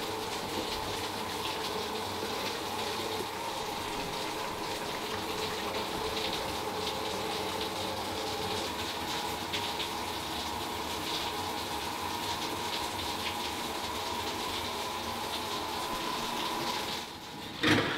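Shower running: a steady spray of water. A short, louder sound breaks in near the end.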